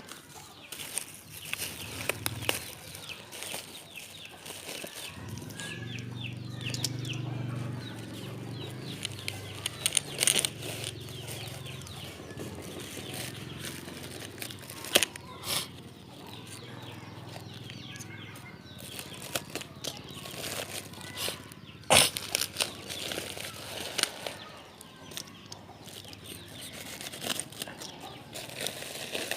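Plastic packaging of a washer hose rustling and crinkling as it is cut open and pulled apart, with sharp clicks and knocks now and then. A low hum runs underneath for several seconds near the start.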